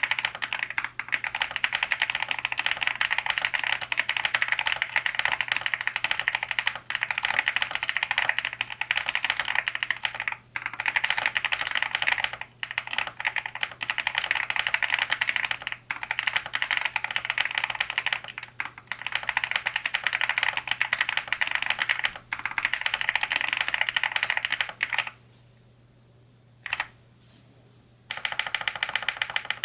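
Fast, continuous typing on a Cidoo V65 V2 mechanical keyboard fitted with hand-lubed Akko V3 Cream Black Pro switches, tape-modded, with dye-sub keycaps. The typing breaks off briefly several times, then stops for about three seconds near the end, broken by a single keystroke, before starting again.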